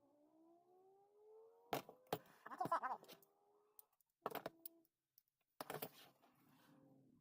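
A small electric motor whining as it rises in pitch, then three short bouts of clicking and clattering.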